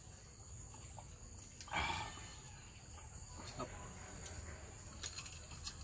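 Steady high-pitched insect chorus from the surrounding vegetation, with one short, loud, breathy rasp about two seconds in and a few faint clicks.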